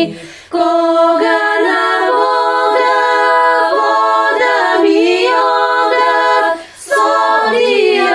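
Women's chamber folk choir singing a cappella in Bulgarian folk style, with held chords and ornamented melodic turns. The choir breaks off twice for a short breath, just after the start and near the end. The mix is built from separate home recordings of each singer.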